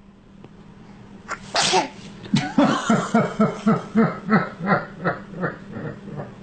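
A single sneeze about one and a half seconds in, followed by a baby's laughter in a regular string of short laughs, about three a second, growing weaker toward the end.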